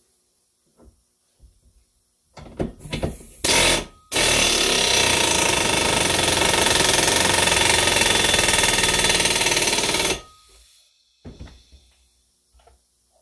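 Air impact wrench driving a Lisle 34400 exhaust pipe expander, spreading its dies inside a steel exhaust pipe: a few short bursts, then about six seconds of steady hammering that cuts off sharply, followed by a few light knocks.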